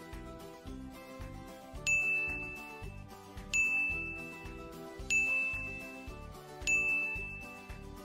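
A bright bell ding sound effect, repeated four times about every one and a half seconds from about two seconds in, each ding ringing out and fading, over background music with a steady beat.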